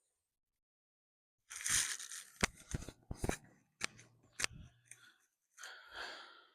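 Rustling and scraping with about six sharp clicks, starting after a second and a half of silence, then a second short rustle near the end.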